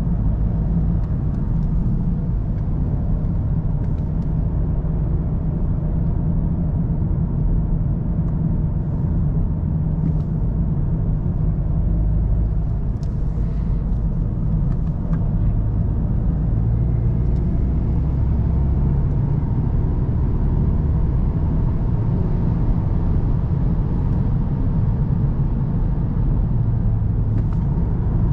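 VW Golf GTD's 2.0 TDI four-cylinder diesel on the move: a steady low drone of engine and tyre rumble.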